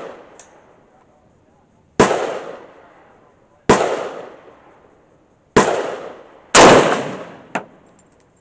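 Century Arms CETME C308 rifle in .308 / 7.62×51 NATO firing four shots at intervals of one to two seconds, each a sharp crack with a reverberating tail. The fourth report runs longer, as if two rounds ran together: the unintended two-shot burst left by a botched trigger job. A shorter sharp crack follows about a second later.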